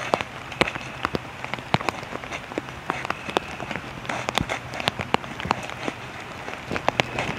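Rain falling, heard as a steady hiss with irregular sharp ticks of drops striking close by, several a second.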